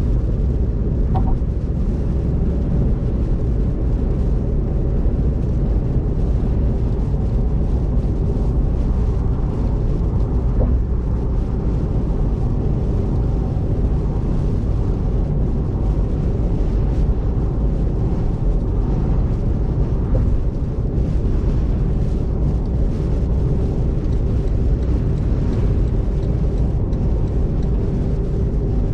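Car driving at speed on a rain-wet expressway, heard from inside: a steady low rumble of tyre and road noise.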